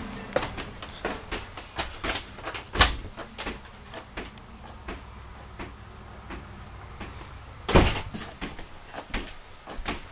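Footsteps and knocks on a travel trailer's floor, a run of short clicks, with two much louder thumps, one about a quarter of the way in and one about three-quarters in.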